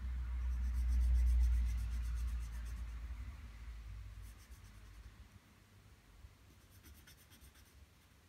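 Graphite pencil hatching on drawing paper: quick scratchy strokes, several a second, in three short runs. A low rumble sits under the first few seconds and fades out.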